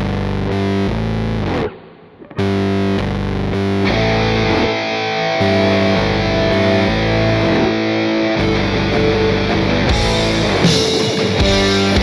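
Rock music with distorted electric guitar playing a chugging chord riff. It drops out for a moment about two seconds in, then returns and grows fuller near the end.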